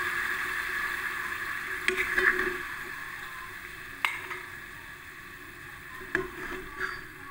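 Tempe bacem sizzling in a wok as its sweet soy glaze cooks down nearly dry, the sizzle slowly fading. Three sharp clicks of a metal utensil against the pan or plate come through it.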